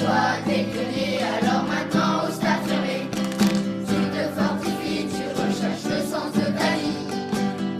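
Background music: a song with several voices singing over strummed acoustic guitar.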